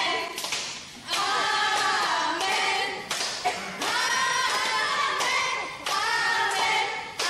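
Several young voices singing a tune together in held, phrased lines, with hand claps.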